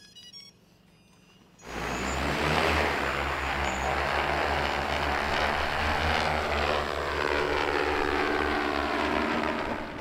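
Quadcopter drones' propellers start up suddenly about two seconds in and buzz loudly and steadily as a dense whir of many rotors, their tones slowly falling in pitch.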